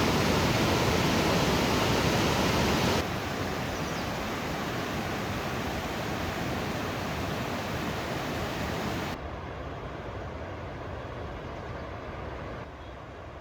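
Rushing water of Havasu Creek pouring over cascades, a steady roar that drops suddenly to quieter stretches of water three times.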